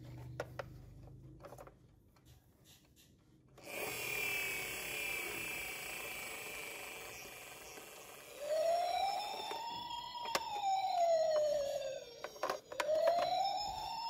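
Toy ambulance's electronic siren: a few faint clicks, then from about four seconds in a high warbling tone, and from about eight seconds a slow wail rising and falling roughly every four seconds.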